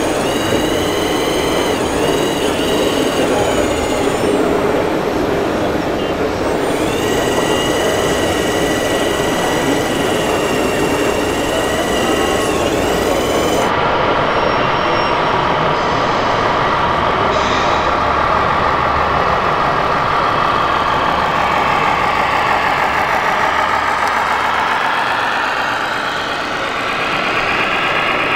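Radio-controlled Liebherr 946 model excavator working, a steady high whine over a noisy hall background. After a cut, a radio-controlled tipper truck's engine sound running, its pitch rising over the last few seconds as it drives closer.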